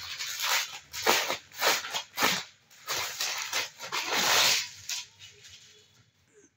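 Crisp organza silk saree fabric rustling in a run of short swishes as it is handled, stopping about five seconds in.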